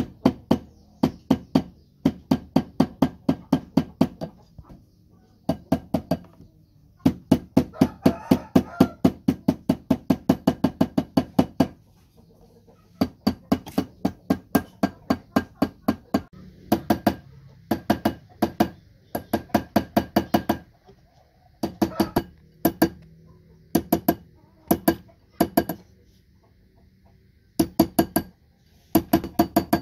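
Small hammer tapping on a ring's stone setting while the ring sits on a steel ring mandrel, closing the setting around a black stone. The taps come in quick runs of about five a second, with short pauses between runs.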